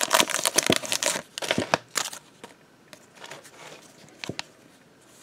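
Foil trading-card pack wrapper crinkling loudly for about two seconds as the cards are slid out of it, then fainter rustling of the cards being handled, with a short tick about four seconds in.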